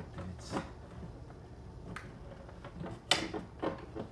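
Glove box and plastic dashboard trim of a 2013 Audi Q5 being handled: a few sharp plastic clicks and knocks, the loudest about three seconds in.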